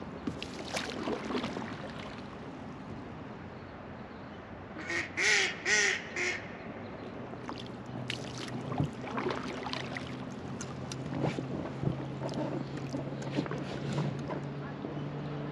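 A duck quacking four times in quick succession about five seconds in, over the steady rush of river water.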